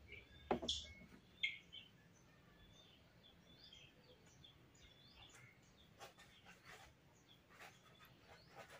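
Small splashes of water as a baby monkey swims in a plastic tub, two sharper ones in the first second and a half and a few fainter ones later. Faint bird chirps sound in the background throughout.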